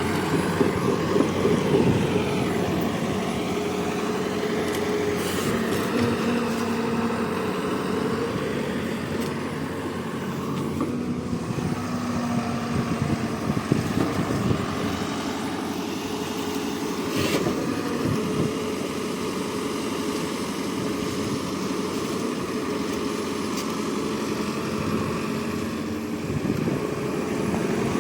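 Heavy machine engine running steadily, its pitch rising and falling a little at times, with a couple of brief clicks.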